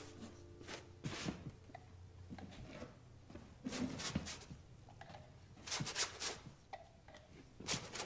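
A paintbrush swishing and scraping across a large canvas in a series of short, irregular strokes, over quiet room tone.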